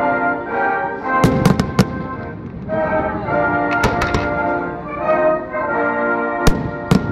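Fireworks bursting in a series of sharp bangs, several in quick succession about a second in, more near the middle and two near the end, over music with long held notes.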